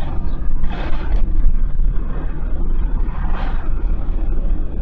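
Land Rover Discovery 2's Td5 five-cylinder turbodiesel and road noise as it drives along at steady town speed, heard from inside the cabin as a steady low rumble. Two brief rushes of noise come about a second in and again about three seconds in.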